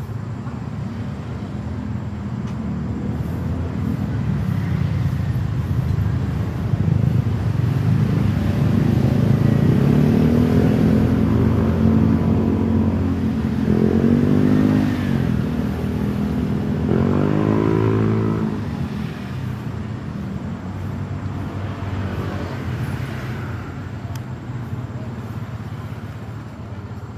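Road traffic: motor vehicle engine and road noise that swells to a peak in the middle and then eases off, with an engine note rising and falling twice in the middle as vehicles pass close by.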